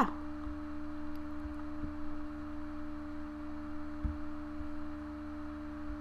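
A steady low hum made of a few constant tones, with several faint, soft low thumps scattered through it; no speech.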